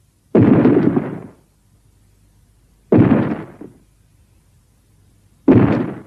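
Three rough roars from the Griffon kaiju, a winged-lion movie monster, voiced by a sound effect built from altered King Kong and Rodan roars. Each starts abruptly and fades away: the first lasts about a second, the second comes about three seconds in and is shorter, and the third starts near the end.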